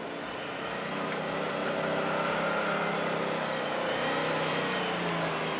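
A 4x4 off-road vehicle's engine running, its pitch drifting gently up and down. It gets louder over the first couple of seconds and then holds steady.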